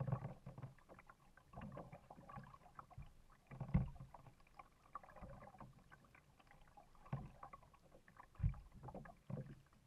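Kayak paddle strokes: the blade dipping and pulling through the water every second or two, each with a low thud and splashing, heard from a camera on the kayak's bow. The strongest strokes come about four seconds in and again near the end.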